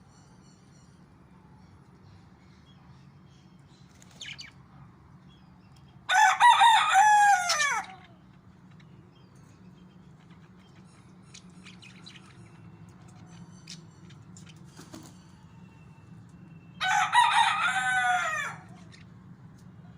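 Rooster crowing twice, about ten seconds apart, each crow about two seconds long with the pitch falling at the end. A faint steady low hum runs between the crows.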